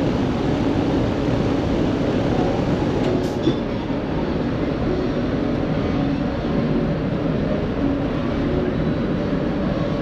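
2003 Ruud Achiever UAKA 2.5-ton air-conditioner condensing unit running, a steady hum with the rush of its condenser fan.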